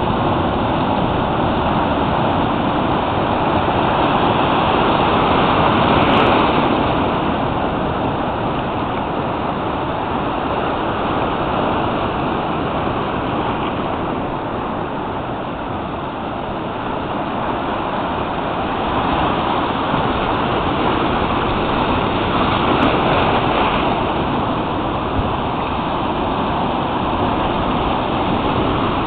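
Sea waves breaking and washing over rocks and pebbles at the shore: a steady rushing noise that swells twice as bigger waves come in.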